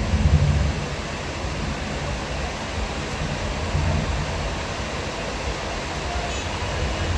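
Heavy rain falling steadily, with a deep low rumble underneath that swells during the first second.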